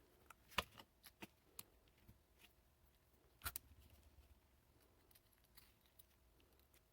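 Scattered small clicks and taps of hard plastic RC car parts being handled and fitted, a dozen or so light knocks, the loudest about half a second in and about three and a half seconds in.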